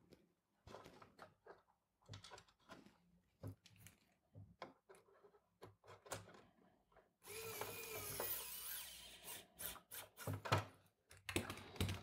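Hand screwdriver driving the fan's mounting screws into the cooler's plastic housing: light clicks and handling knocks, and about seven seconds in a two-second grinding creak with a wavering pitch as a screw turns into the plastic.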